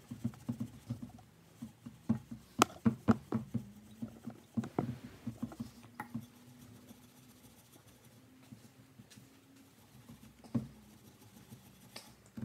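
Steel wool scrubbing rust off the steel spokes and rim of a dirt bike wheel, in quick, uneven rubbing strokes that are busiest in the first half and fainter after. A single knock comes near the end.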